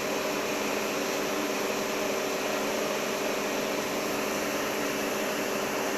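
Longitudinal seam-welding equipment running: a steady hum with several fixed tones under an even hiss.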